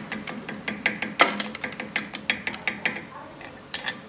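Chipping hammer tapping rapidly on a fresh weld bead on a steel gear shaft, knocking off the slag: about six sharp, ringing metallic taps a second. They pause about three seconds in, then two more taps come near the end.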